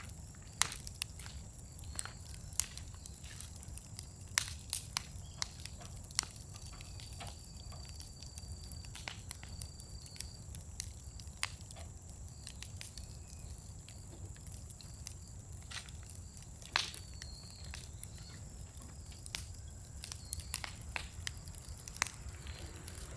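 Scrap-wood fire burning in a fire pit, crackling with sharp, irregular pops, a few louder than the rest, over a low steady rumble.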